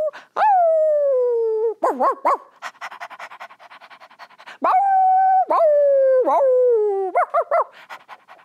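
A woman imitating a dog with her voice: a long howl falling in pitch, a quick burst of yips, about two seconds of rapid panting, then two more howls and a few short yips near the end.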